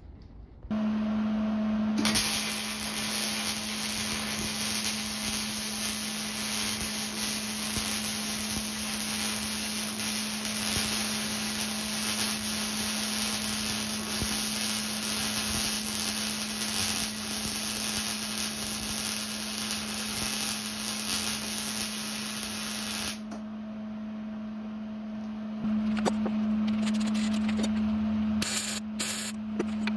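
Arc welding on a steel truck frame rail: the welding arc's steady crackling hiss starts about a second in and stops abruptly about 23 seconds in, over a constant low hum. A few knocks near the end.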